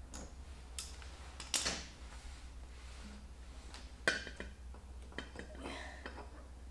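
Scattered clicks and knocks of hands working a motorcycle fuel hose and handling a plastic fuel can, with two louder knocks about one and a half and four seconds in. A steady low hum runs underneath.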